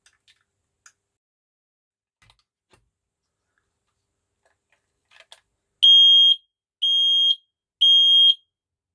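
FireAngel smoke alarm's sounder giving three high-pitched beeps, each about half a second long and about a second apart, starting around six seconds in. A few faint clicks come before them.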